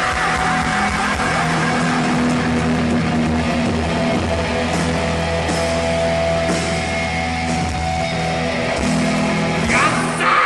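Heavy metal band playing live: distorted electric guitars over a drum kit, with a loud glide in pitch near the end.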